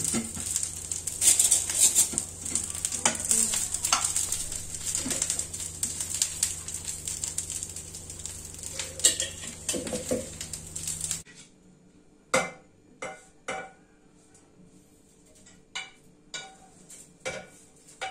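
Sautéed drumstick leaves and green chilies sizzling in ghee in a frying pan, with many small knocks and scrapes of a spatula and spoon working through them. About eleven seconds in the sizzle cuts off abruptly, leaving separate clinks and knocks as the leaves are scraped from the pan into a steel mixer jar.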